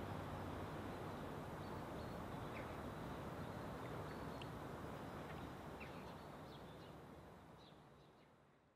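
Faint outdoor ambience: a steady hiss with a few short high chirps scattered through it, fading out near the end.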